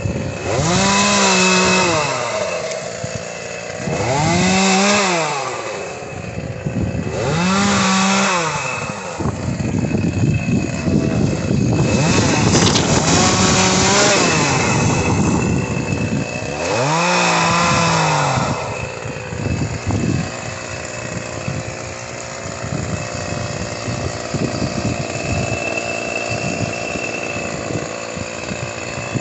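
Two-stroke chainsaw revved up five times, each burst held a second or two at high pitch and then dropping back, idling in between. From about 19 seconds in it idles steadily.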